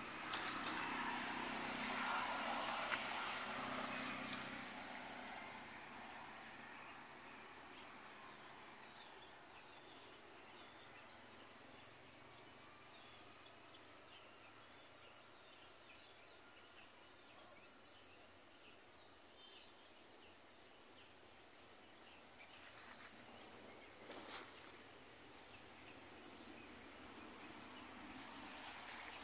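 Steady high-pitched insect drone, with a handful of short, high bird chirps scattered through the middle and near the end. Louder rustling noise and a couple of knocks fill the first five seconds.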